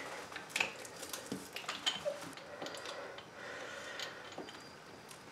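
Faint, scattered clicks and light taps of a braided metal water supply hose and its fitting being handled at the toilet's water connection.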